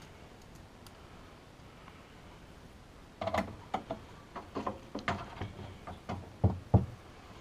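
Irregular light clicks and knocks of a motherboard and its screws being handled against a metal PC case while the mounting holes are found, starting about three seconds in.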